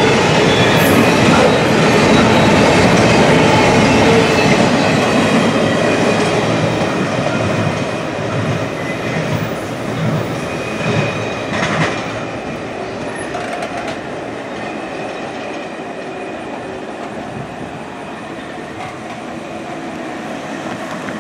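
Double-stack intermodal container cars of a freight train rolling past, wheels clacking over the rail joints. The sound fades away as the end of the train passes and recedes down the line. A car passes over the crossing near the end.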